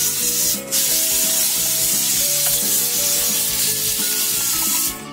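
Cordless Dyson stick vacuum cleaner running with a loud hiss, cutting out for a moment about half a second in and switching off just before the end.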